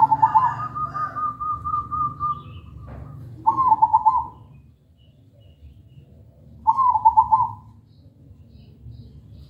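Caged zebra dove (perkutut) singing: three short cooing phrases of quick rolling notes, about three seconds apart. Over the first phrase a higher run of evenly spaced notes carries on for about two seconds.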